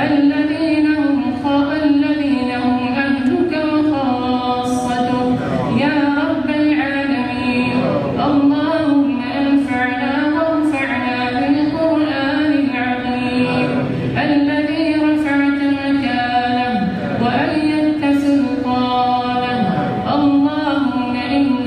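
A man's voice chanting an Arabic supplication (dua) in a melodic, sung style through a microphone, drawing out long notes that waver slowly in pitch.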